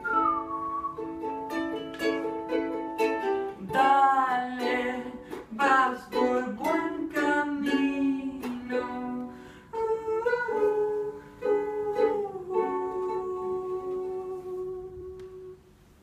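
Ukulele strummed in a song's closing bars, with a wordless vocal melody over it, ending on a held chord that fades out near the end.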